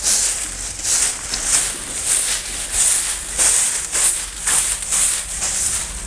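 Long straw broom sweeping a smooth concrete floor in brisk, regular strokes, a swish roughly every half to two-thirds of a second.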